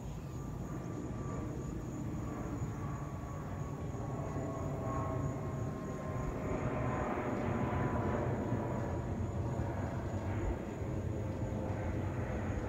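Boeing 777-200LR jet airliner passing overhead on its two GE90 turbofans: a steady low rumble that swells toward the middle, with a faint whine sliding slightly lower in pitch as it goes by.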